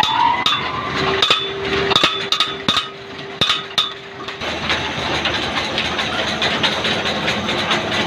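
Belt-driven rice huller machinery running. In the first half there are repeated sharp metallic knocks over a steady hum; about halfway through these give way to a dense, even rattle of the mill at work.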